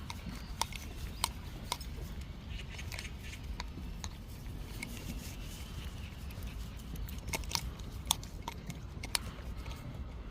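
Scattered sharp clicks and taps, irregular and about one a second or less, over a low steady rumble: footsteps and small dogs' claws on pavement during a walk.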